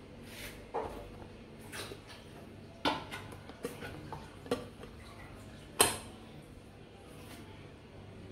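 Lidded metal moi moi plates being set down in a large stainless steel pot, clinking and knocking against each other and the pot wall several times, the loudest knock about six seconds in.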